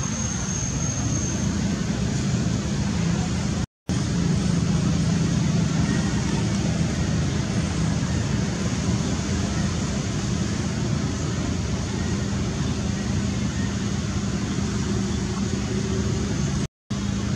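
Steady rushing background noise with a low hum. It cuts out for an instant twice, about four seconds in and near the end.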